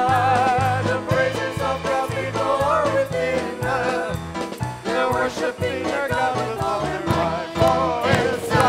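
Live worship music: a band with keyboards plays a praise song over a steady beat while singers carry the melody.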